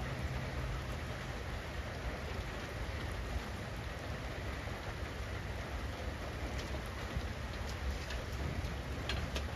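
Steady rain falling, with a low rumble underneath and a few sharper drop hits in the last few seconds.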